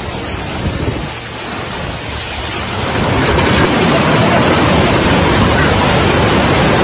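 Floodwater rushing in a fast torrent: a steady, noisy rush of water that grows louder about three seconds in.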